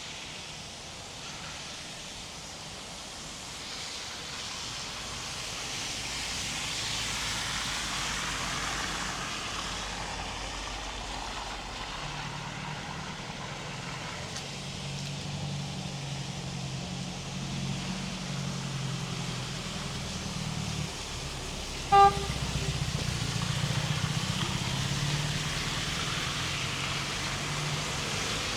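Street traffic: a car engine running close by, louder in the second half, and one short car-horn toot about three quarters of the way through.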